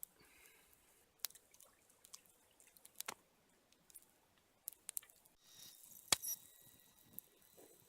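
Faint, scattered crackles and pops from campfire coals with a fish cooking on them.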